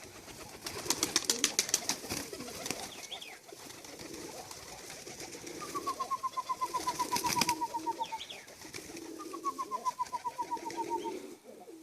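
A flock of pigeons cooing over and over, with runs of sharp clicks and taps among them. Twice in the second half a rapid trill falls slightly in pitch over about two seconds.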